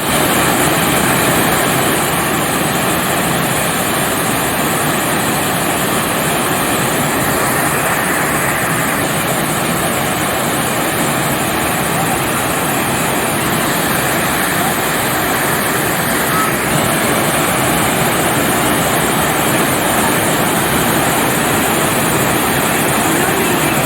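Loud, steady roar of the Sgwd yr Eira waterfall heard close up, an even rushing of falling water that cuts in abruptly.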